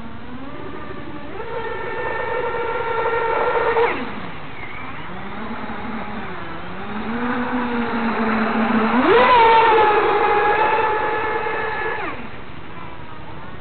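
Electric RC model offshore powerboat (King of Shaves P1 on 5S) whining at speed across the water in two runs. Each run ends with the pitch falling sharply, first about four seconds in and again near the end.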